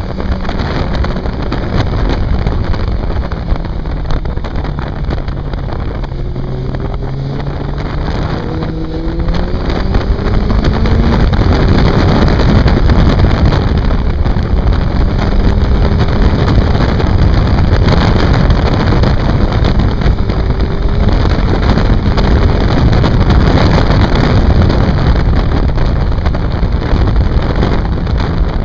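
Inline-four motorcycle engine heard from on board, its note rising and falling with throttle and gear changes, mostly buried under heavy wind rush on the microphone. The wind noise grows louder about ten seconds in.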